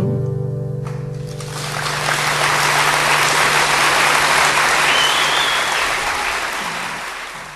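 Concert audience applauding as the band's final chord rings out and fades. The clapping swells from about a second in and dies away near the end.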